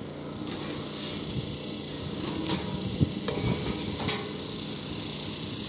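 Cutting torch hissing steadily as it cuts through a mobile home's steel frame, with a few sharp clicks about halfway through. The thin, weathered steel is cutting easily.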